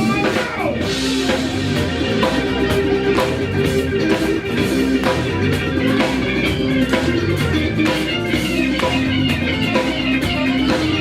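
A live soul band playing an instrumental passage, with electric guitar, bass and a drum kit keeping a steady beat.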